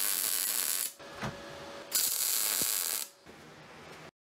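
Wire-feed welder arc crackling in two bursts of about a second each, with a short pause between them as the weld is stopped and restarted.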